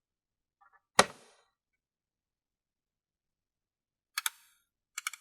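Hand tools knocking and clicking: one sharp knock about a second in, then two short groups of quick clicks near the end, from a ratchet and 4 mm hex bit socket being set on a motorcycle fairing bolt.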